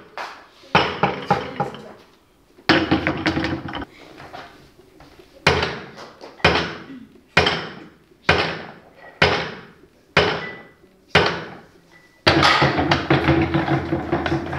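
A barbell loaded with bumper plates, 110 kg, is set down on a box again and again during chest-supported rows. Each touchdown is a sharp clank with a short ringing decay, coming about once a second through the middle of the stretch, with two longer stretches of heavier clattering.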